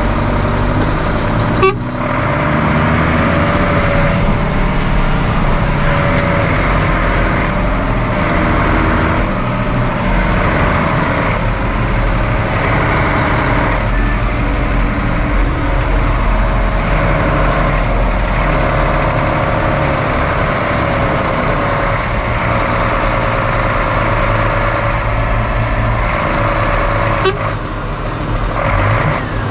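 Farm tractor's diesel engine running hard while towing under heavy load, its pitch drifting slowly up and down, with a sharp click about two seconds in and another near the end.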